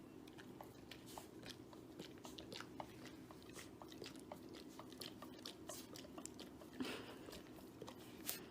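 Faint chewing: irregular small crunches and clicks, with a louder crunch about seven seconds in and another near the end.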